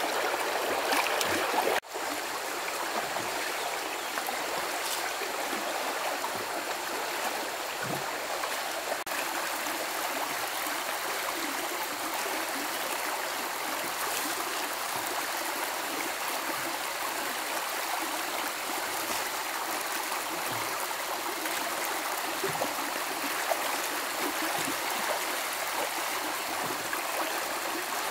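Stream water flowing steadily, an even rushing sound that breaks for an instant about two seconds in.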